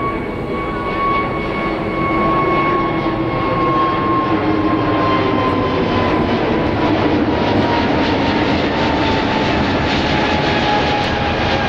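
Vistara Airbus A320-251N (A320neo) with CFM LEAP-1A turbofans climbing out overhead after takeoff: steady jet engine noise with a whine that slowly falls in pitch, growing a little louder over the first few seconds.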